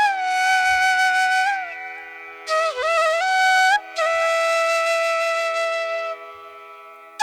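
Background music: a solo flute playing a slow melody of long held notes with pitch bends, over a steady drone. The notes fade out near the end.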